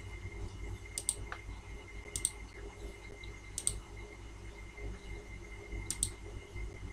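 Computer mouse clicking: four quick double clicks spread a second or more apart, over a steady low hum and a faint high whine.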